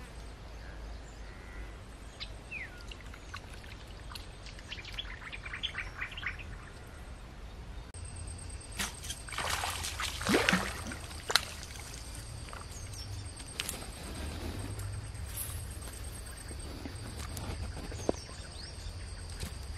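Birds chirping in short runs during the first half. About halfway through, a hooked rohu thrashes and splashes at the water's surface as it is pulled out on a rod, followed by a sharp click. A steady high-pitched insect drone runs under the second half.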